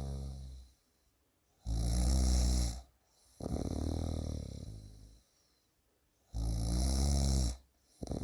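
A person snoring in a steady rhythm. There are two loud snores, each about a second long, and each is followed by a longer, quieter breath that fades away before a short pause.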